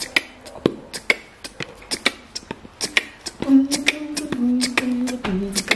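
A person beatboxing: a rhythmic run of sharp mouth clicks and pops, joined about halfway through by a hummed tune that steps between a few held notes.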